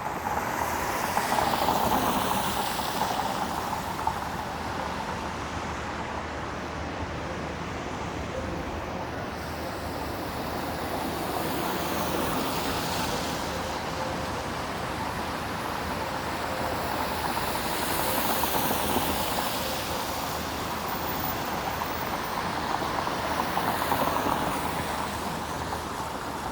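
City street traffic: cars passing on a downtown street over a steady traffic hum, with several vehicles swelling up and fading away, one about two seconds in and others near the end.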